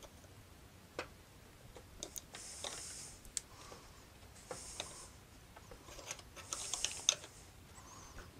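Faint metal clicks and short scraping strokes, about every two seconds, from hand tools working a small wind generator's blade hub off its shaft.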